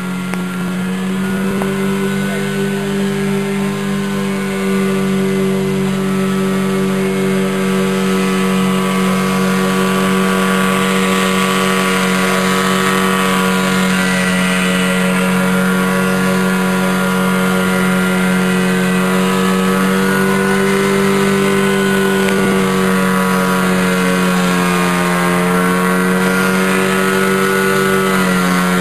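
Airboat's engine and propeller running with a steady, loud drone, growing louder over the first few seconds; the pitch dips briefly and recovers near the end.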